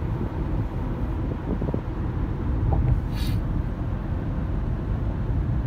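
Steady road and engine noise heard inside a car's cabin while driving at highway speed. A brief hiss comes a little after three seconds in.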